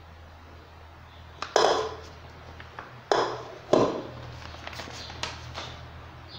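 Aluminium tube cake pan knocking against a stone countertop three times, each knock with a short metallic ring, while it is being dusted with flour; lighter taps follow.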